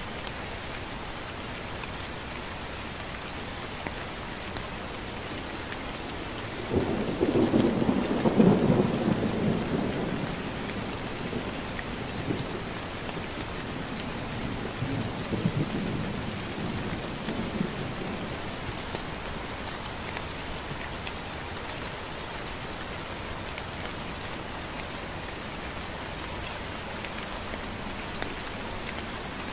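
Steady light rain hissing, with a roll of thunder that breaks in suddenly about seven seconds in, peaks a couple of seconds later, then rumbles on more softly and dies away about ten seconds after it began.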